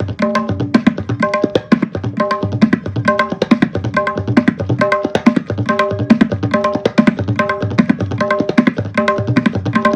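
Solo tabla playing a rela in Teen Taal at fast tempo: a dense, even stream of rapid strokes over a ringing pitched dayan and a deep bayan, repeating in a regular cycle. The rolling pattern is meant to imitate a train running on tracks at high speed.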